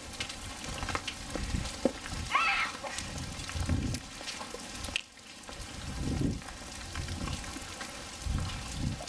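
Hail and rain falling on a concrete pool deck and the pool water: a steady hiss thick with small ticks of pellets striking, with a few low rumbles coming and going.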